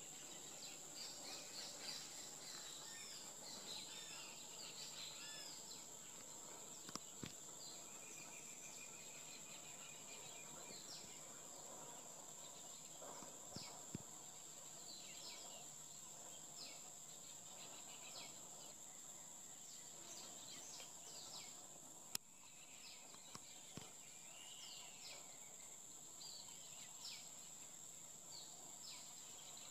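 Faint outdoor ambience: small birds chirping over a steady high-pitched whine. A few sharp clicks, the loudest about 22 seconds in.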